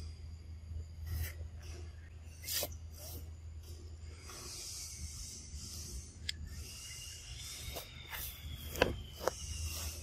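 Outdoor background noise: a steady low hum and a high hiss, with a handful of sharp clicks and rustles, the loudest near the end.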